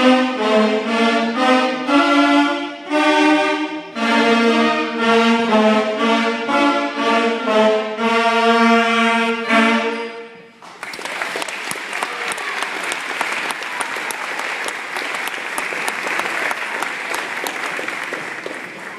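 Beginner school wind band of saxophones and clarinets playing the closing bars of a march, cutting off together about ten seconds in. Audience applause follows at once and starts to fade near the end.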